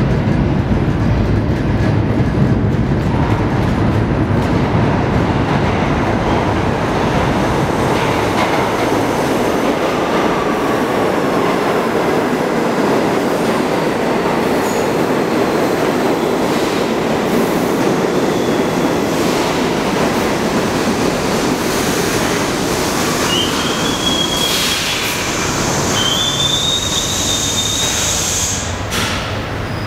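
New York City subway train pulling into an underground station: a loud, steady rumble of wheels on the rails, with two short high squeals from wheels and brakes as it slows to a stop near the end.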